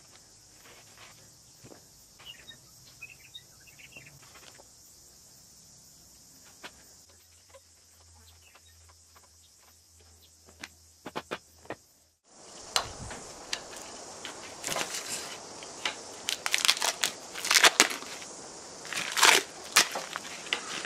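Scattered faint clicks and scrapes from hands working on an aluminium pipe, turning into louder, sharper, irregular clicks, scrapes and crunches over the second half. A steady high insect drone runs behind.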